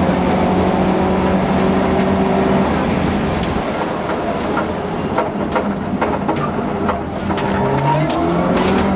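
Subaru Impreza rally car's flat-four engine heard from inside the cabin: holding steady at speed, then easing off for a few seconds with scattered clicks and knocks, and rising in revs again near the end as it accelerates.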